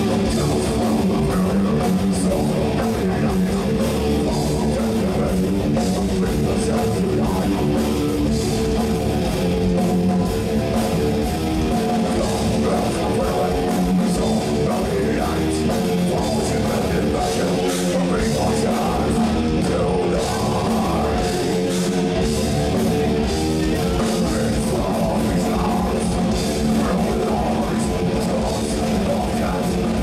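Heavy metal band playing live: electric guitars, bass and a drum kit at a steady, loud level.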